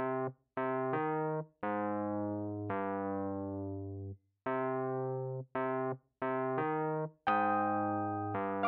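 Outro music: an electric-piano-like keyboard playing a string of about ten chords, some short and some held for a second or more, separated by brief silences.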